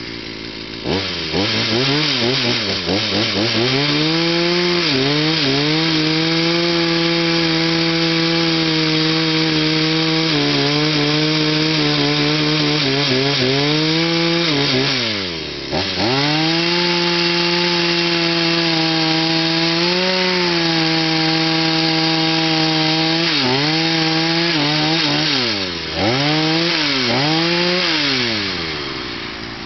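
Two-stroke chainsaw revved up and held at full throttle while cutting through felled birch logs. It blips up and down several times near the start, drops back briefly about halfway and again a few seconds before the end, and falls back to idle near the end.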